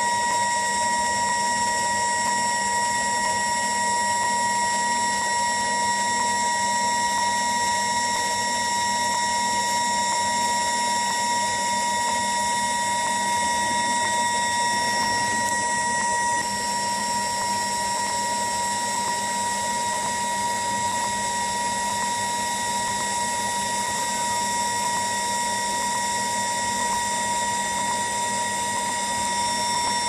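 Selective soldering machine running with a steady whine made of several fixed high tones, and faint ticks about once a second. A couple of the higher tones drop out about halfway through, leaving it a little quieter.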